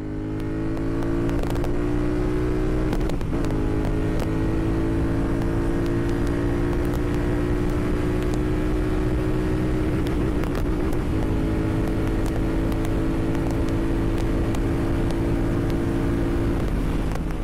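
Royal Enfield Continental GT 650's parallel-twin engine running at a steady idle, its pitch creeping up slightly over the first few seconds. It cuts off suddenly near the end.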